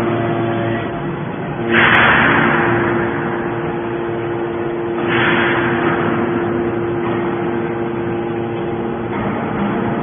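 Hydraulic scrap metal baler running: its power unit hums steadily, with two loud hissing surges about two and five seconds in, each fading over a second or so.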